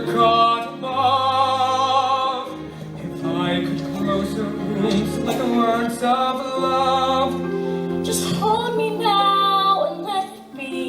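A woman singing a slow, sustained melody with vibrato over held instrumental chords. The music dips briefly near the end.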